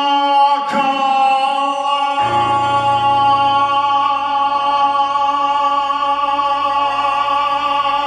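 A male singer holds the song's last long note over the backing music, with a deeper bass coming in about two seconds in; the note and the music stop near the end.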